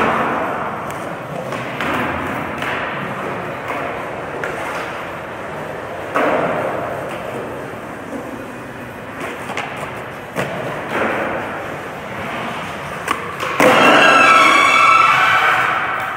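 Skateboard wheels rolling on a smooth concrete floor, with several sharp board thumps and landings. About thirteen seconds in, a loud scraping grind with a squealing, ringing tone lasts a couple of seconds.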